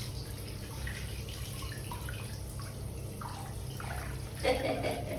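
Light water splashing and dripping over a steady low hum, with one brief louder sound about four and a half seconds in.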